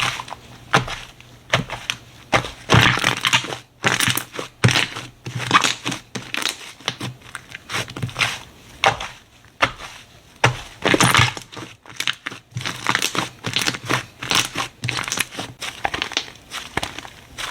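Slime being squished and worked by hand close to the microphone, giving an irregular stream of sticky pops and clicks.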